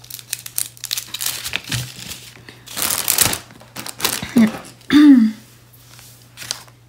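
Small plastic bags of diamond-painting drills and a paper sheet being handled, crinkling and rustling in short scratchy bursts, with a louder stretch of crinkling about three seconds in.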